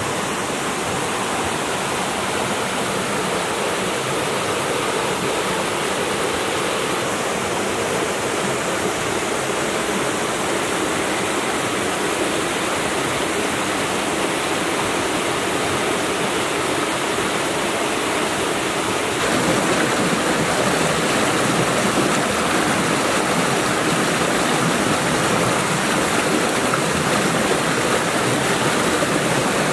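Rocky stream flowing, a steady rush of water that gets louder and fuller about two-thirds of the way in.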